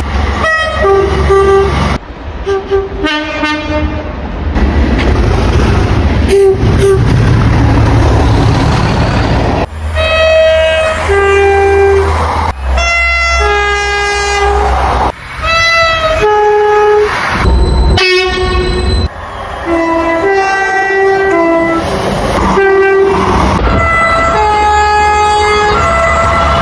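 A string of train horn blasts from one train after another, some short and some held, many sounding two notes in turn, over a low rumble of engines and wheels on rail.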